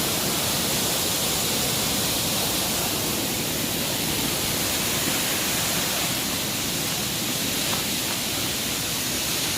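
Waterfall's falling water, a steady, even rushing hiss with no break or change.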